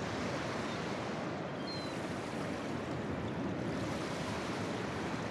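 Ocean surf: a steady wash of breaking waves.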